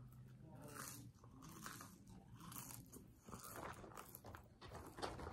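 Faint chewing and crunching of food close to the microphone, a run of soft irregular crunches.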